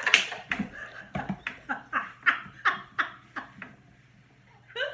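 Women laughing hard, a run of about three bursts of laughter a second that trails off a little under four seconds in.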